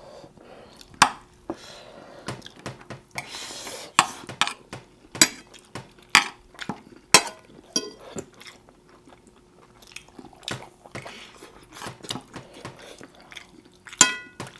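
Close-miked eating: chewing and mouth sounds, with frequent sharp clicks of spoons and forks against plates and bowls. Near the end comes a clink that rings briefly.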